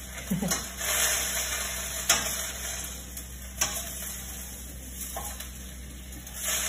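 Kale sizzling in oil and water in a frying pan over a gas flame while it is stirred and tossed. The utensil clicks sharply against the pan a couple of times.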